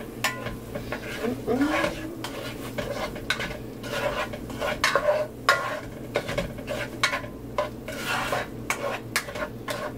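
Spatula stirring and scraping buttery onions with a spice mixture in a black pan, a string of irregular scrapes and clicks against the pan, with a light sizzle from the foaming butter.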